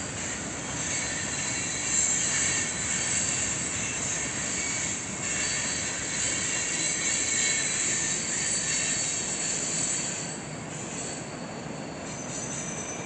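Freight train cars rolling past, their wheels giving a steady high-pitched squeal against the rails. It is loudest about two seconds in and eases a little near the end.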